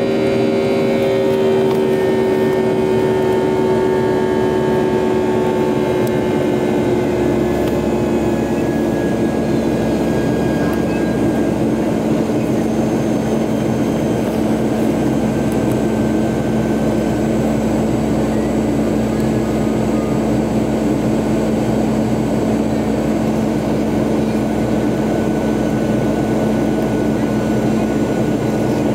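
Cabin noise of a Boeing 737 climbing after takeoff: the turbofan engines and the air rushing past make a steady, loud rush, with a few steady hums. Some of the hums sink slightly in pitch over the first several seconds.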